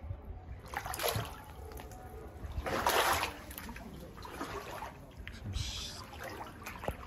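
Splashing and sloshing of a person wading through knee-to-waist-deep floodwater in waders, a few separate splashy strides, the loudest about three seconds in.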